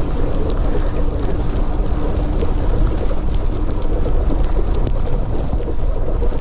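Wind buffeting the microphone over an electric fat bike's wide tyres rolling through deep, soft snow, with scattered crackles and a faint steady hum under the noise.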